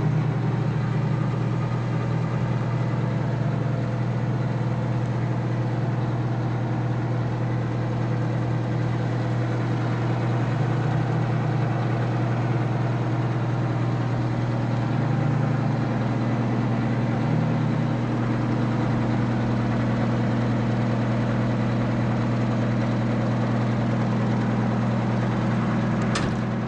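The 1995 E-One Titan crash truck's turbocharged Detroit Diesel 8V92T, a two-stroke V8, idling steadily with a deep even hum. A single sharp click comes near the end.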